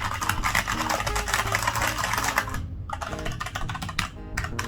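Fast typing on a Cooler Master CK550 V2 mechanical keyboard with red linear switches: a dense run of keystrokes, broken by brief pauses just past halfway and near the end.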